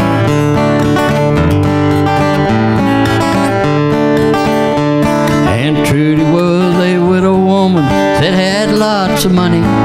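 Acoustic guitar strummed in chords, with a man's voice singing over it from about halfway through, holding one long note before it falls away.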